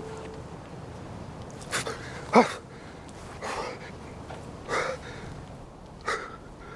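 A person gasping and breathing heavily: five short, ragged breaths about a second apart, the loudest with a brief voiced groan.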